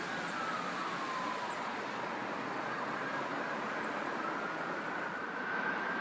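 A siren's slow wail, gliding down in pitch in the first second or two and then climbing back up through the second half, over a steady rush of road traffic.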